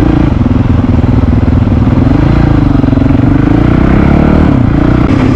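Honda CRF450RL's single-cylinder four-stroke engine running under way on a dirt road, its pitch wavering up and down with the throttle.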